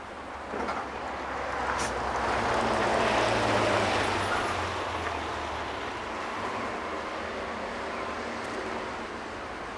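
Street traffic: a vehicle passing close, its noise swelling to a peak about three seconds in and then fading, with a brief click near two seconds.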